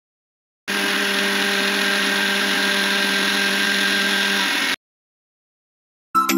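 Electric mixer grinder running at a steady speed, a constant motor hum with a high whine, as it grinds soaked ingredients and water into a smooth batter in its steel jar. It starts abruptly about a second in and cuts off abruptly about four seconds later.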